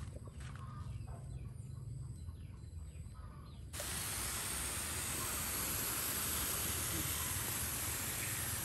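Soft rustles and small clicks of hands working damp potting soil, with a few faint bird chirps. About four seconds in, a steady hiss cuts in abruptly and holds.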